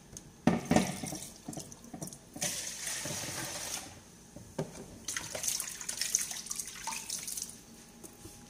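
A couple of loud knocks, then water running and splashing in two spells of a second or two each, with knocks and clatter among them.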